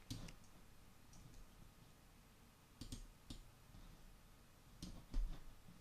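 Quiet, scattered clicks of a computer mouse: one near the start, a small cluster about three seconds in and another about five seconds in, over faint background hiss.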